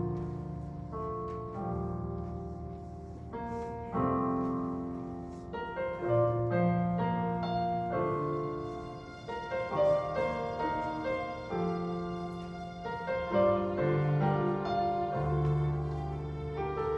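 Slow, gentle piano playing the instrumental introduction to a worship song: chords with sustained low bass notes, changing about once a second.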